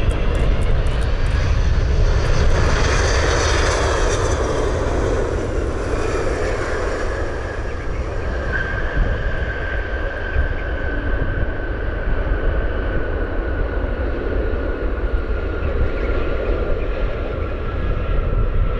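Boeing 777-200 jet engines rumbling as the airliner lands, loudest a few seconds in as it passes. After that a steady engine whine slowly drops in pitch on the rollout.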